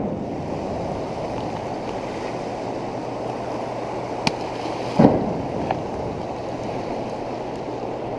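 Steady rushing of water pouring through a dam spillway, with a few brief clicks and knocks, the loudest about five seconds in.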